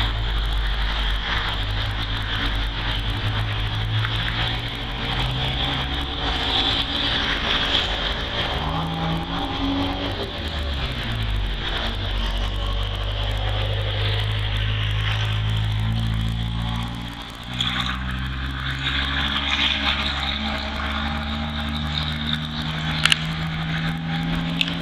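A motor engine running continuously, its pitch holding and then sliding up and down at times, with a steady high-pitched hiss above it.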